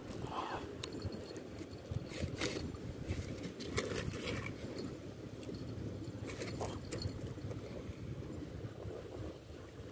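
Steady low rumble of wind and water at the shore, with a few light scrapes and clicks from gear or feet shifting on the rocks.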